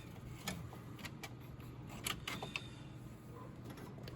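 A handful of light, scattered clicks and clinks as steel impact sockets are handled.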